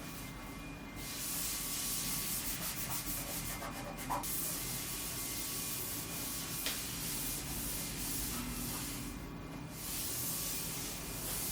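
Scrubbing of a hard surface, a steady rasping rub lasting several seconds, with a short pause about nine seconds in before it starts again.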